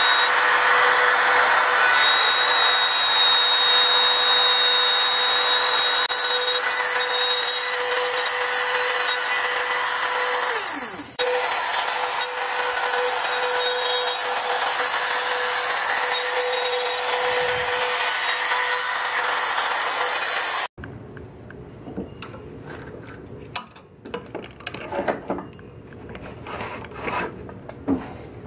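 Handheld router running and cutting a recess into sycamore along a clamped template guide: a steady high whine over the cutting noise. It stops abruptly about twenty seconds in, followed by scattered knocks and rattles as a steel C-clamp is handled.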